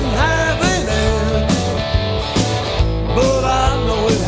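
Electric blues band playing: a lead electric guitar plays bending, sliding notes over bass and drums.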